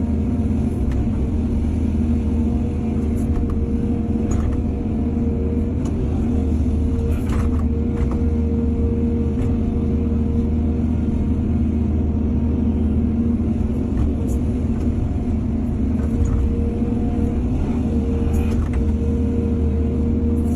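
Heavy diesel earthmoving machinery running steadily: a deep engine rumble with a constant whine over it and a few light knocks.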